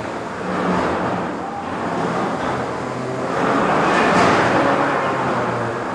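Featherweight combat robots' electric motors whirring as the robots push against each other, over the chatter of a crowd. The noise swells from about three seconds in.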